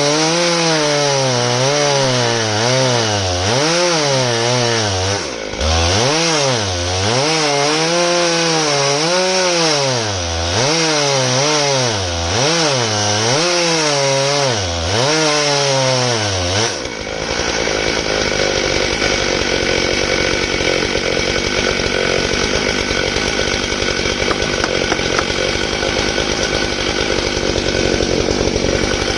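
Stihl MS661 two-stroke chainsaw running at high revs in a chainsaw mill, ripping through elm. For most of the first half its pitch dips and recovers about once a second as the cut loads it; after that it settles into a steadier, rougher sound.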